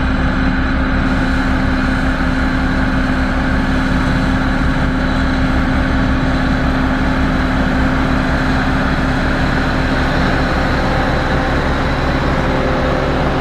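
Heavy diesel engine of a SANY motor grader running steadily, with a low pulsing beat; its note shifts slightly about ten seconds in.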